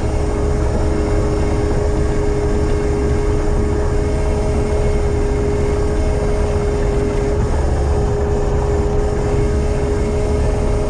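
Heavy diesel machine running steadily under load, a deep engine rumble with a constant high whine over it.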